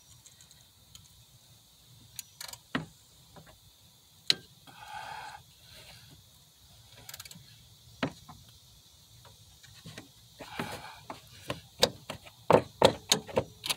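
Scattered metal clicks and knocks from hand work on a Chevy 5.3 LS serpentine belt and the alternator pulley, engine off, ending in a quick run of sharper clicks over the last few seconds.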